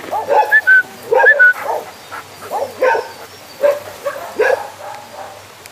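Several dogs barking and yelping in short, irregular bursts, with a few high whines in the first second or so, at a snake held out to them through the fence; the barking thins out near the end.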